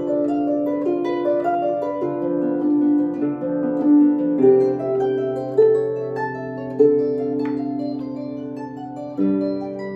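Solo harp playing a study built on Alberti-style broken chords: plucked notes ring on over a repeating low accompaniment figure.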